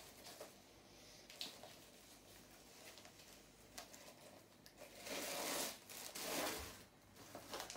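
Clear plastic packing rustling and crinkling as it is handled and pulled out of a new handbag, with small handling clicks first and two louder rustling bursts a little past halfway.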